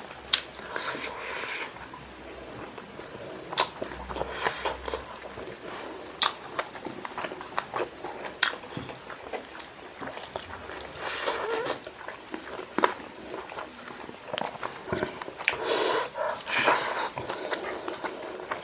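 Close-up eating sounds of a person eating spicy chicken wings and drumsticks by hand: wet chewing and mouth smacking, broken by sharp clicks and a few longer crunchy bites.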